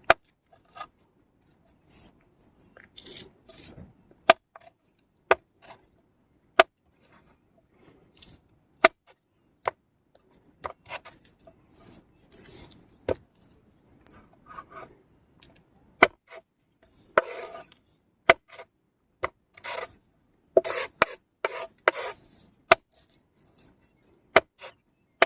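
Cooking utensils knocking and scraping: irregular sharp taps with short scraping strokes in between, busiest about two-thirds of the way through.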